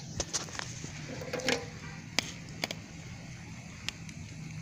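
Wood campfire crackling, with irregular sharp pops over a steady low rumble.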